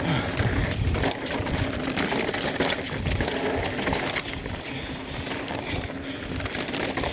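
Mountain bike racing down a rough, rocky trail: tyres on rock and dirt with a continuous rattle and many small knocks from the bike, over a low rumble of wind on the microphone.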